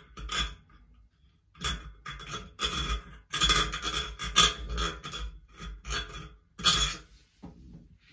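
A screwdriver and long trim screw scraping and knocking against a chrome shower trim ring and the valve body, in a string of irregular short scrapes and clicks, as the screw is fished blindly for its threaded hole.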